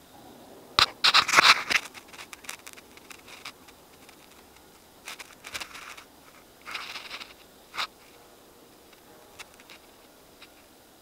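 Footsteps pushing through forest undergrowth, with leaf litter, ferns and twigs rustling and crackling in short irregular bursts. The loudest bursts come about a second in, then again around five and seven seconds, with a few light snaps between.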